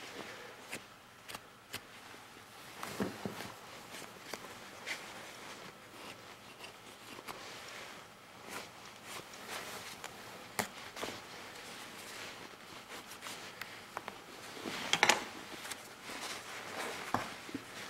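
Quiet handling of a lynx pelt with gloved hands and a knife while the cartilage is cut out of the ear: faint scattered clicks and short scrapes, with a louder rustle of fur and skin about fifteen seconds in.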